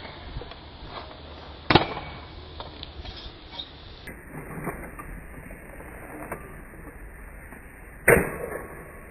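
Stunt kick scooter slapping down on asphalt: two sharp clacks of deck and wheels hitting the road, one about two seconds in and a louder one near the end, with a few lighter knocks and rattles between.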